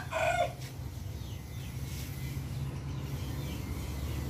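A rooster's crow ending about half a second in, then faint bird chirps over a steady low hum.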